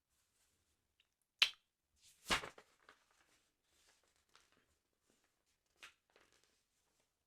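Close-miked handling of a football sticker album: a sharp click about a second and a half in, then a louder, longer rustle, followed by a few faint ticks and taps.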